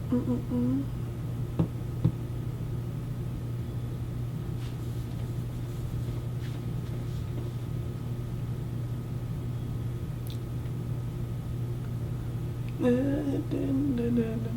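A voice carrying a tune in held notes for about a second at the start and again near the end, over a steady low hum. Two sharp clicks come about two seconds in.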